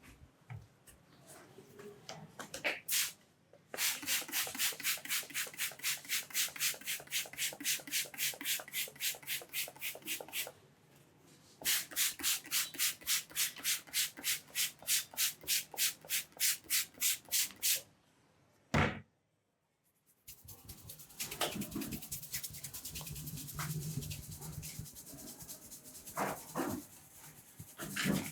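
Vigorous scalp massage: hands rubbing rapidly back and forth through hair and over the scalp, about four strokes a second, in two runs of several seconds each. A single sharp snap comes a little past two-thirds of the way in, followed by softer, continuous rubbing.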